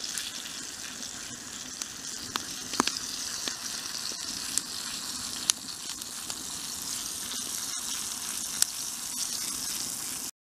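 Battered fish sizzling in oil in a small frying pan over a campfire: a steady hiss with scattered pops and crackles, cutting off suddenly at the very end.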